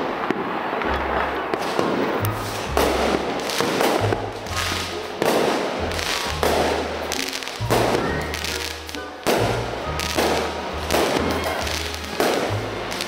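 Fireworks going off in a dense, irregular string of sharp bangs and crackles, several a second at times, with background music and its bass line running underneath.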